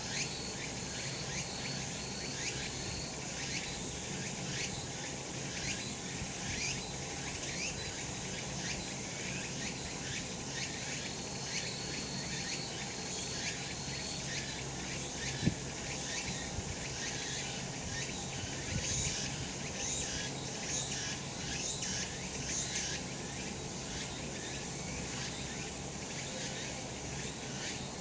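Cicadas calling in a chorus, a dense, rapidly pulsing high buzz that keeps up without a break. A single short click sounds about halfway through.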